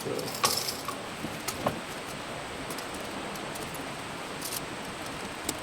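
Small sharp clicks and taps from handling electrical wiring and a switch and receptacle: one about half a second in, two more around a second and a half in, and a faint one near the end, over a steady background hiss.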